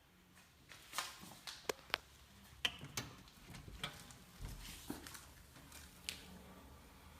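Irregular sharp clicks and knocks, a few a second and uneven in strength, beginning about a second in over faint room tone.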